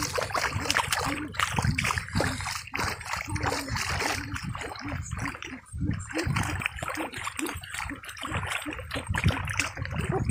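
Water splashing and churning irregularly as a hooked fish thrashes at the surface of a shallow river, pulling against the fishing line.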